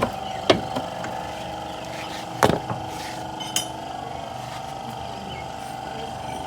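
Hand tools knocking and clinking on car parts, about six sharp strikes, the loudest about half a second and two and a half seconds in, over a steady background hum.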